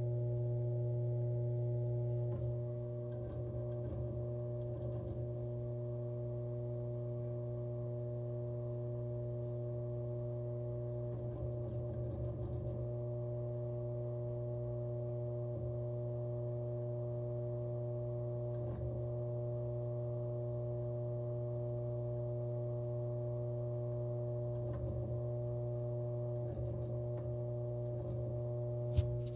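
Brand-new WD Purple 8TB hard drive running with a constant loud drone, like a very loud fan, made of a steady low hum with fainter steady tones above it. Brief faint clusters of ticks come now and then, and there is one sharp click near the end. The owner finds the drone abnormally loud, enough to return the drive as faulty.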